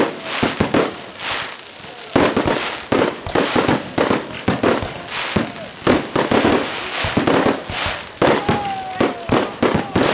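Aerial fireworks shells bursting in rapid succession, many sharp bangs and crackles several times a second, with a falling whistle about eight seconds in.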